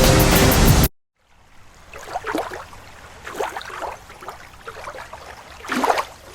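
A loud, dense sound cuts off abruptly about a second in. After a short silence, water sloshes and splashes quietly in irregular strokes, the loudest near the end.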